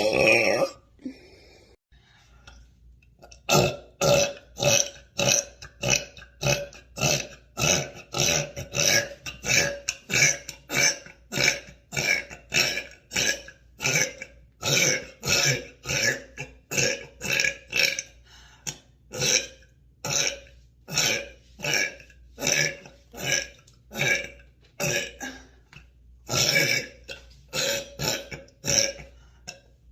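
A woman burping over and over: one belch right at the start, then after a short pause a long run of short belches at about two a second.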